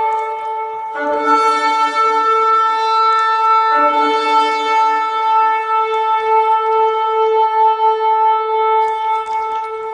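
Shofar (ram's horn) blowing one long held note. A second, lower horn tone joins twice, for about two seconds each time.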